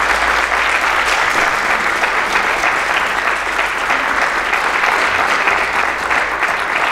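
Audience applauding steadily, a dense unbroken clapping that holds at the same level throughout.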